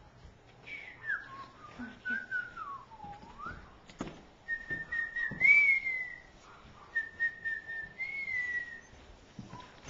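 Puppy whining: three long, thin, high whines, the first sliding down in pitch and back up, the later two held steadier with a slight rise.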